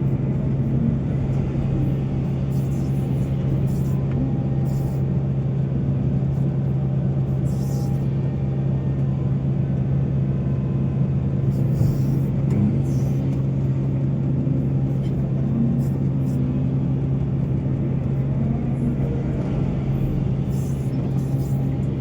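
Diesel engine of heavy mining machinery running at a steady, even drone.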